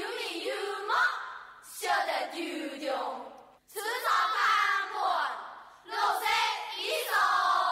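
A chorus of women chanting rhythmic verse in Hakka in unison, in four loud phrases of about two seconds each, each falling in pitch at its end.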